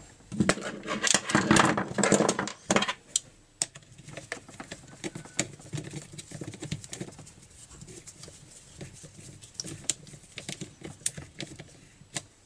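Plastic engine cover of an Echo 2655 trimmer clattering as it is pressed and fitted into place by hand for the first few seconds, followed by scattered small clicks and ticks of a screwdriver with a socket bit fastening the cover.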